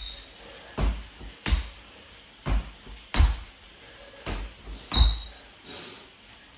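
Trainers thudding on a wooden floor as both feet jump in and out together from the press-up position, a landing roughly once a second, a few with a short high squeak.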